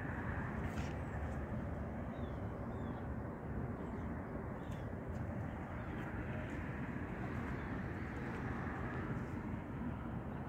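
Steady outdoor background noise, mostly a low rumble, with a few faint high chirps.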